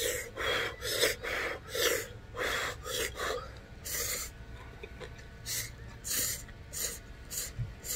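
A man eating hot, spicy ramen: a quick run of short puffs of breath over the steaming noodles, about two a second, then noodles slurped in with a few scattered sucks and breaths.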